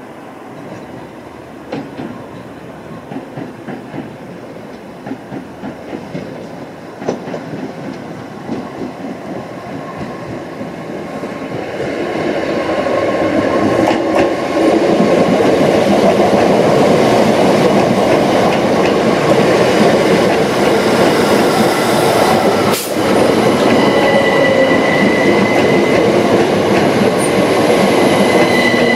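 Great Northern Class 387 electric multiple unit approaching and running into the platform. Its wheels click over the rail joints as it nears, and the sound grows into a loud rumble from about twelve seconds in. A steady high-pitched squeal comes in near the end as it brakes.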